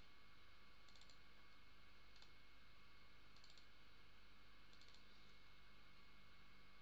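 Near silence with faint computer mouse clicks, several quick double-clicks spaced about a second apart, over a faint steady hum.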